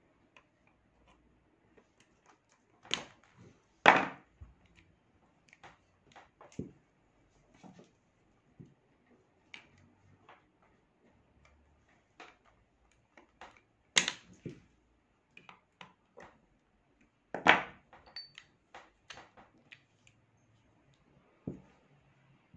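Pliers clicking and scraping against the metal of a Kimar pistol while working a clogged cartridge out of its chamber, with four louder metal clacks and one brief ping.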